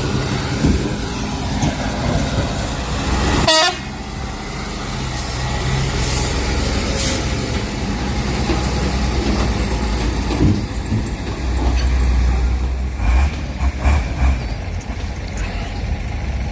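Heavy logging truck's diesel engine running steadily, with a short horn toot about three and a half seconds in.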